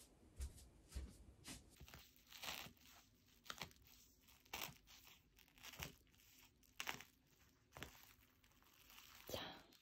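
Faint, intermittent crinkling and tearing of wrapping being handled, in short separate rustles about every half second to a second.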